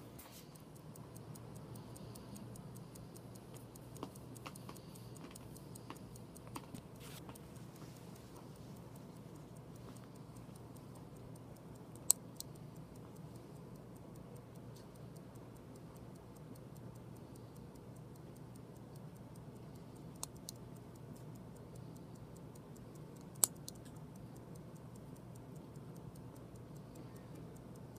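Single-button chronograph wristwatch movement ticking steadily, with a few sharper single clicks of the chronograph mechanism, the loudest about twelve and twenty-three seconds in.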